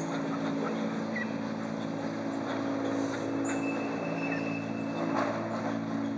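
Steady low machine hum running throughout, with a few faint short high chirps over it.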